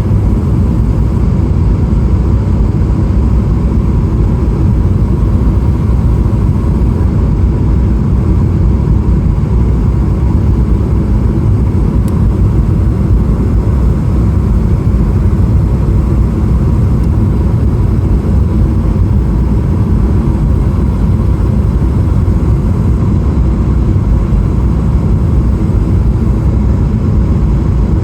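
Boeing 777-300ER in flight, heard inside the cabin: a loud, steady rumble of engine and airflow noise with a faint steady whine above it.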